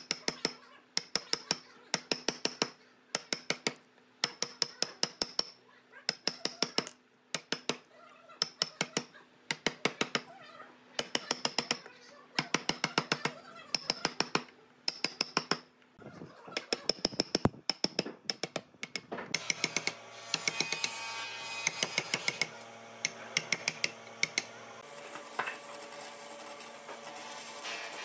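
Workshop tool work: quick runs of sharp clicks or taps, about one run a second, each with a short high ring. About two-thirds of the way in, a steady machine whir joins underneath.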